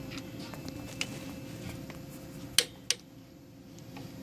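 A few light clicks and two sharp clicks about a third of a second apart, from hands working on the tacker's clamp mechanism, over a steady faint hum.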